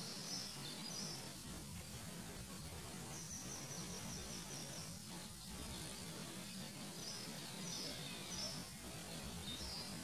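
Small birds chirping in short runs of quick high notes, a few times over, against a steady background hiss.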